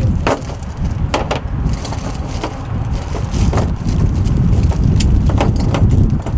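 Sharp plastic clicks and knocks from a plastic coolant jug and funnel fittings being handled while coolant is poured into a radiator filler neck, over a steady low rumble.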